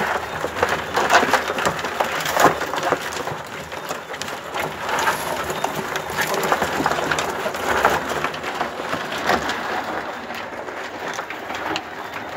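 Live crabs clattering and scraping in a plastic barrel as they are handled: a dense crackle of shells and legs clicking against each other and the plastic, with a few sharper knocks.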